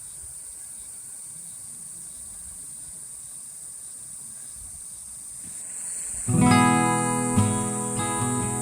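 A faint, steady high-pitched drone like insects over quiet background noise. About six seconds in, strummed acoustic guitar music comes in loudly and carries on.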